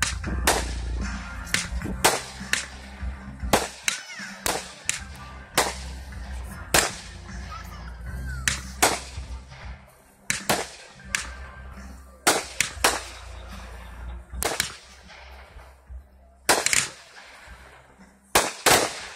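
Fireworks show: aerial shells bursting in an irregular barrage of sharp bangs, more than twenty in all, several coming in quick pairs, with music playing underneath.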